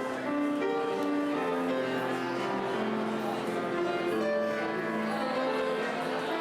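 Instrumental music, a slow melody of held notes over sustained chords.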